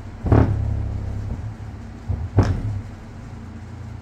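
NVX 8-inch car-audio subwoofer playing free-air, with no enclosure, reproducing a bass-heavy test track. Deep bass notes run throughout, broken by two sharp loud hits, about a quarter second in and again about two and a half seconds in.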